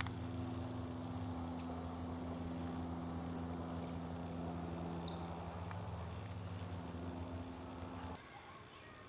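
Many short, high-pitched, bird-like chirps, each rising quickly and then holding, often in pairs, over a steady low electrical hum; both stop abruptly about eight seconds in.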